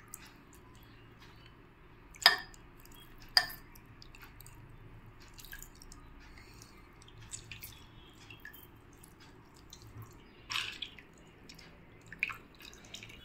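Water dripping and splashing into a bowl of water as peeled, fire-roasted pointed gourds are squeezed by hand, in scattered drips with a few louder ones about two and three seconds in and again near ten seconds.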